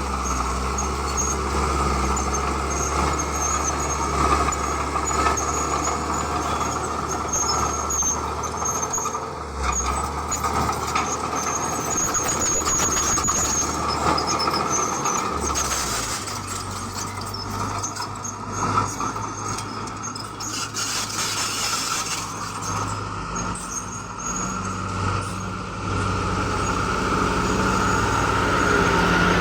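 Heavy diesel construction machinery running, with a steady high squeal over the engine drone and scattered knocks; the engine note shifts about halfway through.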